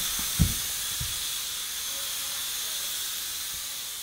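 Air hissing steadily out of a balloon through the drilled bottle cap of a CD balloon hovercraft, the jet that lifts the disc off the floor. A soft low thump about half a second in and another at about a second.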